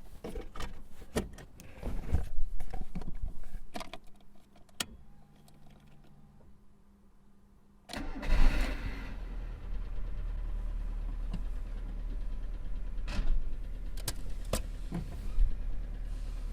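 Car interior: clicks and knocks of handling for several seconds. About eight seconds in, the engine is cranked and starts with a sudden burst, then settles into a steady low idle, with a few sharp clicks later on.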